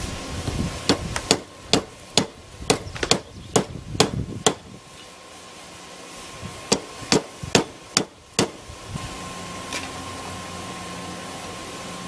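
Hand hammer striking a hot steel rod on an anvil, sharp ringing blows about two a second: a run of about ten, a pause of about two seconds, then five more. A steady hum follows the last blow.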